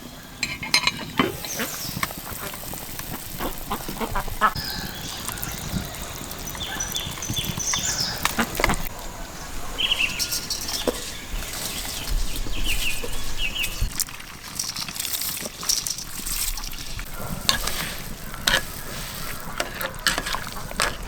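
Birds calling in short, high calls, now and then, over scattered knocks and clicks.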